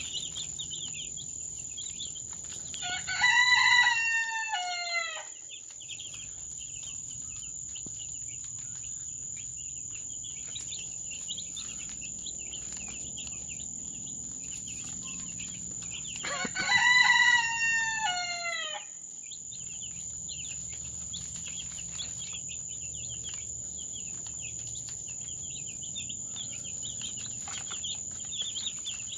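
A rooster crows twice, each crow about two seconds long, the second coming about thirteen seconds after the first. Under the crows, week-old chicks keep up a steady peeping.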